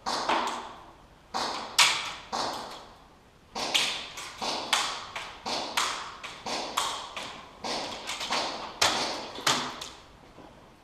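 A run of sharp taps and knocks, irregular but about two a second, each with a short rough tail.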